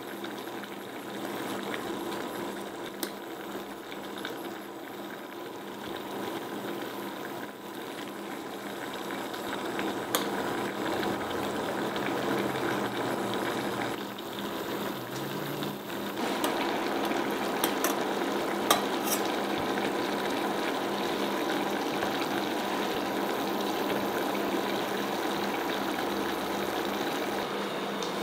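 Water at a rolling boil in a small stainless steel saucepan, a steady bubbling hiss, with a few light clicks along the way.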